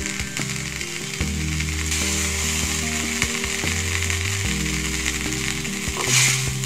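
Butter sizzling as it melts in a stainless-steel kadai over a gas flame. The sizzle grows louder about two seconds in and swells again near the end.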